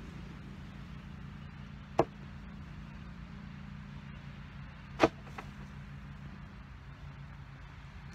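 Two sharp knocks, about two seconds and five seconds in, as stones or clods of dirt are dropped onto a wooden casket in an open grave. A steady low hum runs underneath.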